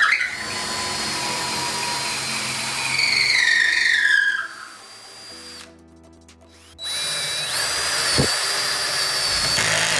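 DeWalt 20V Max cordless drill running free with its clutch at the highest torque setting, in two bursts. The first run's whine falls as the motor slows and stops about four seconds in. The second starts about seven seconds in with a rising whine as it spins up, then holds steady to the end.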